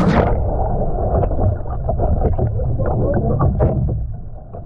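A paddler capsizing out of a sit-on-top kayak into lake water: a splash right at the start, then muffled sloshing and splashing with scattered knocks as he swims beside the overturned boat.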